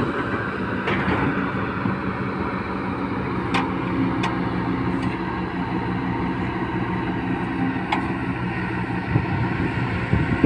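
Kobelco SK-series crawler excavator's diesel engine running steadily while it digs, with a few short sharp knocks.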